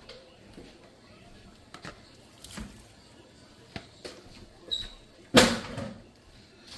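Cooked penne pasta being tipped into a pot of sauce, with light knocks and scrapes of utensils and cookware, then one louder knock about five and a half seconds in.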